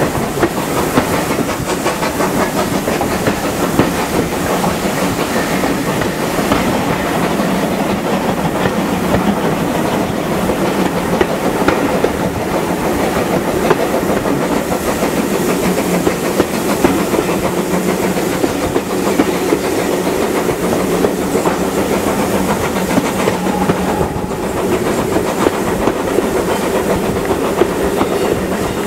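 Steam-hauled train running, heard from a carriage window: the carriage wheels clatter steadily over the rail joints, with the hiss and working of the steam locomotive ahead.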